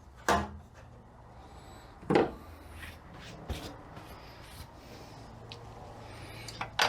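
Transmission parts being handled and set down on a workbench: two sharp knocks, then a few faint clicks and some rubbing.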